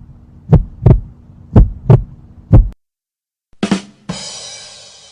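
Heartbeat sound effect: paired low thumps, lub-dub, about once a second, stopping nearly three seconds in. After a short gap comes a brief hit, then a bright crash-like ring that fades away.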